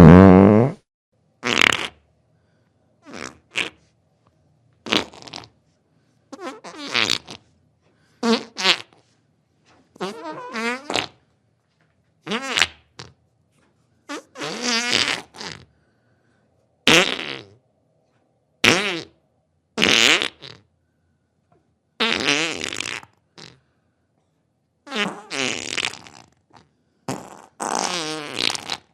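A series of fart sounds, about fifteen in all, each a separate burst with silence between. Some are short pops, others are drawn out for a second or more with a wobbling, sputtering pitch.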